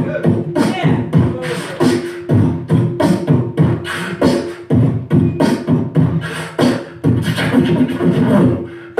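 A man beatboxing into a handheld microphone through a PA: a steady, fast rhythm of mouth-made drum sounds.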